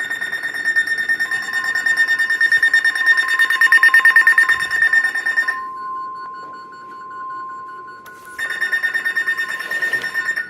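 NOAA Weather Radio warning alert tone: a single steady tone lasting about seven seconds, the signal that comes before a warning broadcast. It is overlapped at its start and end by a rapidly pulsing electronic alarm beep from a receiver.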